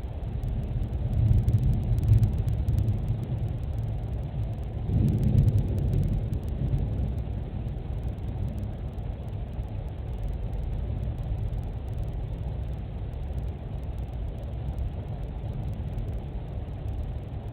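Thunder rumbling low, swelling twice in the first few seconds and then going on as a steady low rumble, heard through a Dropcam home camera's microphone.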